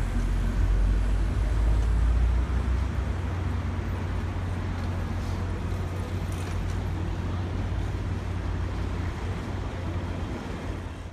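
Low steady rumble of a ferry's engine at the landing, heaviest for the first couple of seconds, over general outdoor hubbub.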